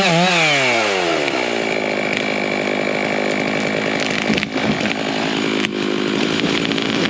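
Stihl MS660 two-stroke chainsaw running at high revs. Its pitch falls over the first second and a half and then holds a steady, lower note, with two brief clicks around the middle.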